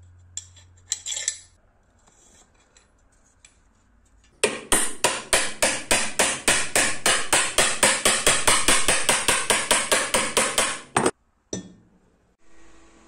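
Stanley steel hammer striking the workpiece in a quick, even series of sharp blows, about five a second, starting about four seconds in and stopping abruptly some six and a half seconds later.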